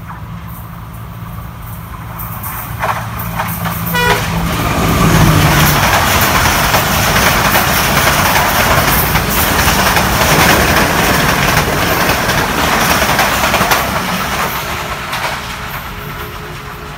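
ZCU-20 diesel locomotive of an express train approaching at speed with its engine running, giving a short horn toot about four seconds in. The coaches then rush past with wheels clattering over the rail joints, and the sound fades as the train recedes.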